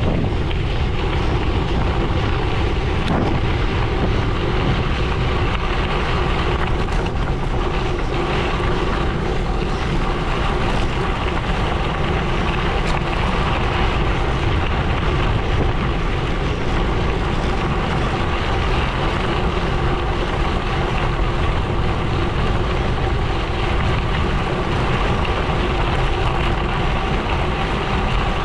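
Gravel bike rolling steadily along a gravel road: a continuous rush of tyres on gravel and wind buffeting the microphone, with a faint steady hum underneath.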